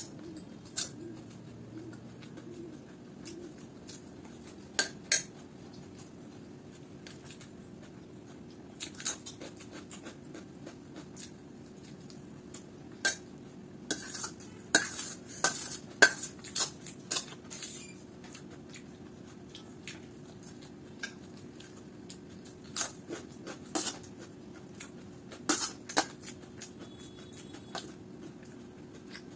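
Steel spoon clinking and scraping against a stainless steel plate as poha is scooped up, in scattered sharp clicks with a busy run of them around the middle and a few more near the end.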